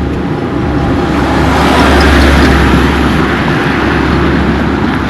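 A motor vehicle passing close by, its engine rumble and road noise swelling to a peak about two seconds in and then easing off slightly.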